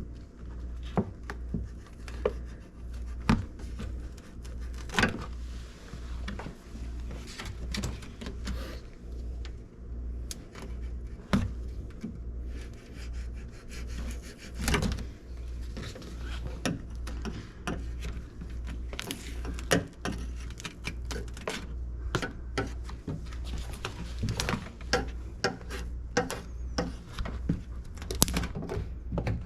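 Plastic rain guard being peeled off a car's inner door panel while a pocket knife cuts the sticky sealant holding it: irregular rubbing and scraping with many small clicks and knocks.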